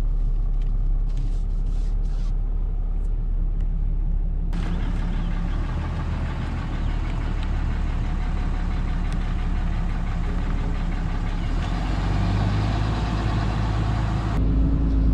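Pickup truck engine running as the truck pulls away and rolls slowly along a road: a steady low hum, then, from about four seconds in, engine rumble with a steady hiss of tyre and wind noise.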